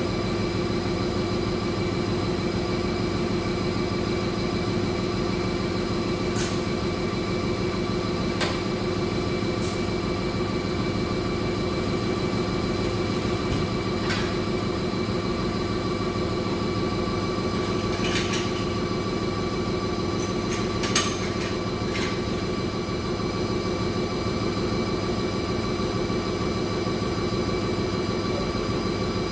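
Jet dyeing machines in a textile dyeing plant running with a steady hum made of several fixed tones, broken by a few sharp metallic clicks or knocks.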